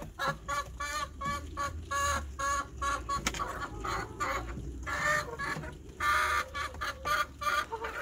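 Brown hens clucking: a quick run of short clucks, about four a second, giving way to longer, louder calls.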